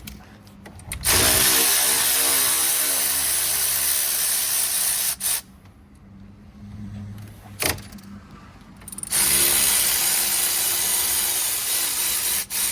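Power ratchet on a 13mm socket undoing the two brake caliper bolts: two runs of about four and three seconds, each opening with a whine that changes pitch. A short knock comes between the two runs.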